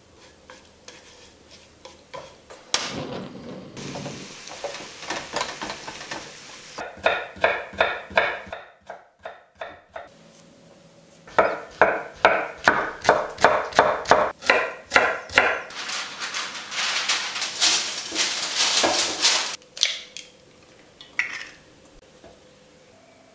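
A sequence of kitchen sounds: minced meat sizzling in an oiled wok, then a kitchen knife slicing shiitake mushrooms on a wooden cutting board in steady strokes, about three to four a second. A second, denser stretch of hissing follows, and a few light clicks near the end.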